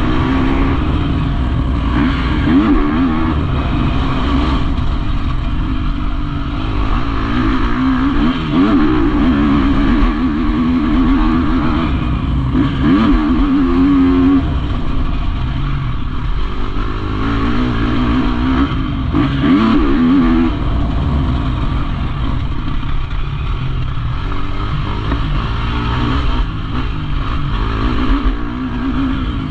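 KTM motocross bike's engine running hard as it is ridden around a dirt track, its pitch rising and falling over and over with the throttle.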